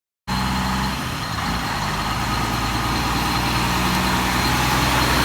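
Motor vehicle engine idling steadily with a low hum and broad road noise, cutting in abruptly about a third of a second in.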